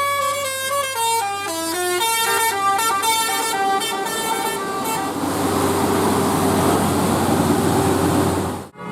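Bus 'telolet' musical horn, a multi-tone air horn, sounding a held chord and then playing a quick melody of short stepping notes for about four seconds. A loud rushing noise with faint tones follows and cuts off suddenly near the end.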